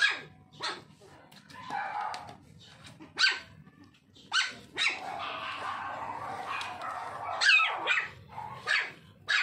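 Toy poodle puppies yapping in short, high-pitched barks, over and over, with a quick cluster of yaps near the end.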